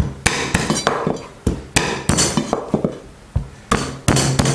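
The flat of a Chinese cleaver slapping down on pieces of peeled ginger on a wooden cutting board, smashing them. About a dozen sharp thumps at an uneven pace, some in quick runs of two or three.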